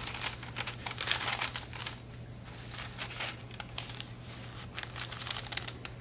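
Paper rustling and crinkling as hands handle a brown paper-bag pocket and turn the ledger-paper pages of a handmade junk journal. It is busiest in the first two seconds, then lighter, scattered rustles.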